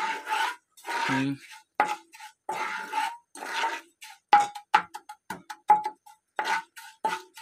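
A metal spoon scraping and stirring jaggery syrup in a non-stick frying pan, in quick uneven strokes about two a second, each with a thin squeak.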